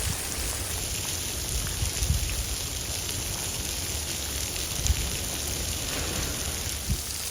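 Meltwater pouring and dripping from the bridge deck above, splashing down in a steady rain-like patter.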